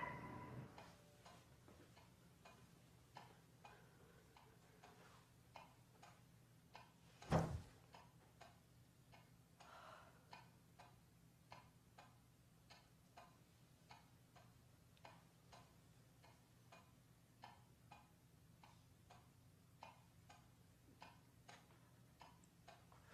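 Faint, steady ticking of a bedside clock in a quiet room, over a low hum, with one loud thump about seven seconds in.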